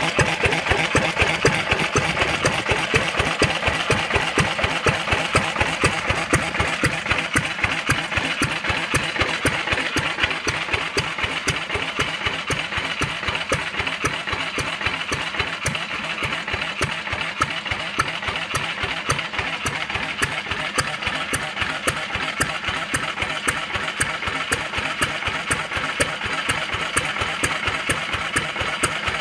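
1964 Yongxing kerosene engine running steadily, with an even, rapid firing beat that holds the same speed throughout.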